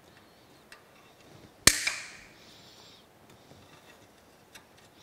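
Hand tool working a cotter pin out of a castle nut on a steam locomotive stoker engine's valve connecting rod: a few faint metal clicks, and one sharp snap about a second and a half in that rings briefly.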